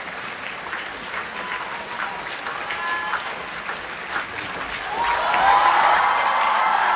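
Theatre audience applauding at a curtain call, with scattered high-pitched cheers over the clapping. The cheering swells and grows louder about five seconds in.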